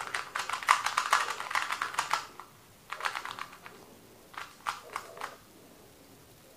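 MoYu Meilong 2x2 speedcube being turned fast by hand, its plastic pieces clicking in a rapid run for about two seconds, then two shorter bursts of turns, as the cube's corner cutting is tried out.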